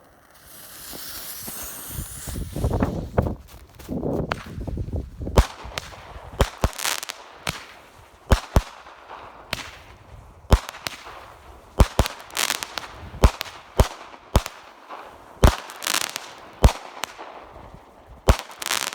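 Pair of small 200-gram consumer firework cakes going off. A hiss over the first couple of seconds, deep thumps of shots firing from the tubes, then from about five seconds in a long series of sharp cracks from the aerial bursts, often one or two a second.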